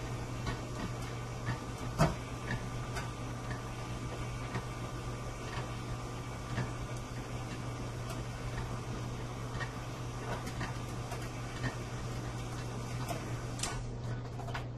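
KitchenAid stand mixer running a pasta cutter attachment as a sheet of dough is cut into noodles: a steady motor hum with light mechanical ticking, and one sharper click about two seconds in.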